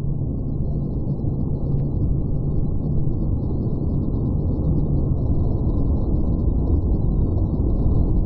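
Strong wind buffeting the microphone: a loud, steady low rumble with muffled surf, all the higher sound cut away.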